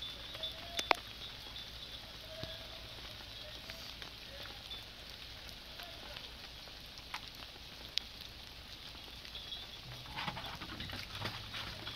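Open fire hissing steadily, with a few sharp crackles or pops, the loudest about a second in and about eight seconds in.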